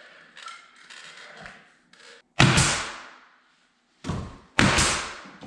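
Three sharp, loud knocks or thuds: one about two and a half seconds in, then two close together, about half a second apart, near the end, each fading quickly, with fainter handling and rubbing sounds before them.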